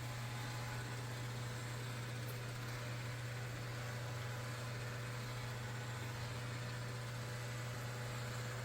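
Dreame L10s Ultra robot vacuum running steadily: a constant low hum over an even hiss.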